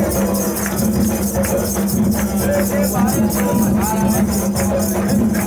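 Percussion music with a fast, even shaken rhythm like a tambourine or rattle, with voices over it.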